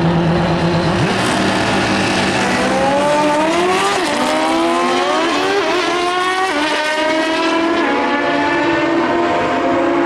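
A pair of drag-racing motorcycles run hard down the strip, engines rising in pitch through a series of upshifts, dropping back about every second and a half. Near the end the engine sound settles into a steadier drone.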